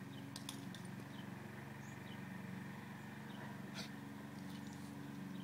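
A steady low machine hum runs underneath, while a small bird chirps repeatedly with short, high, falling notes. A few sharp clicks come through, two in quick succession about half a second in and one more near the four-second mark.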